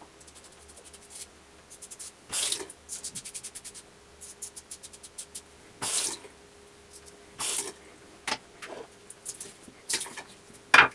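Parker Variant adjustable double-edge safety razor scraping through lathered stubble in short strokes, heard as runs of rapid scratchy ticks. Between the strokes come a few brief splashes of water at the sink as the razor is rinsed.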